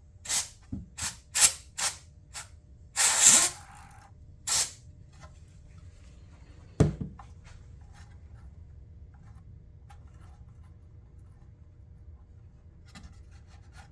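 Compressed air blowing dust out of a small cooling fan, in about nine short hissing puffs over the first five seconds with one longer blast around three seconds in. A single sharp knock follows near seven seconds.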